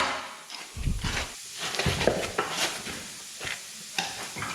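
Irregular clicks and light clattering over a steady hiss, like work noise in a shop.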